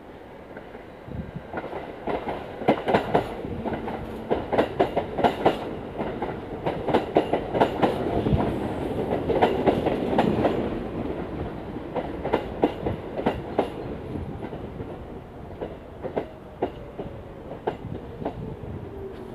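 R46 subway train pulling in alongside the platform, its wheels clicking over the rail joints. The clicking grows louder as the cars come level and thins out later. A falling whine comes in near the end as the train slows.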